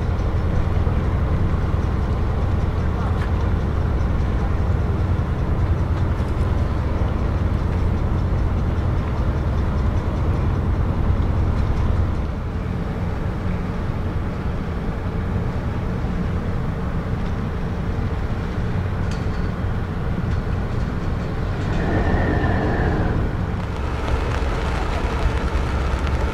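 Steady low rumble of ships' diesel engines running at the quay. A short, high, slightly falling tone sounds once near the end.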